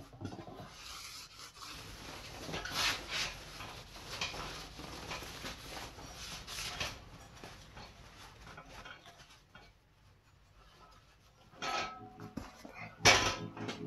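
Cloth shop rag rubbing over a dirt bike wheel's hub and rear sprocket in quick repeated strokes, dying away after several seconds. Near the end come two sharp knocks as the wheel is lifted off the metal tyre-changing stand.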